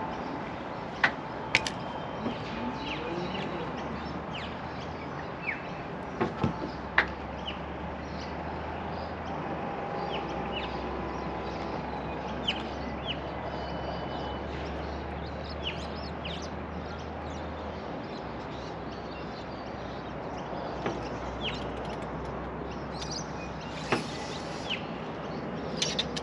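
Short bird chirps scattered over a steady outdoor background hiss, with a few sharp clicks and a low hum through the middle stretch.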